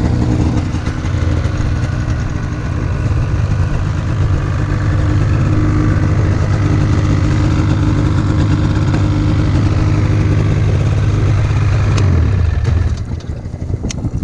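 Ski-Doo Summit snowmobile's two-stroke engine running at a steady idle, dropping quieter about thirteen seconds in.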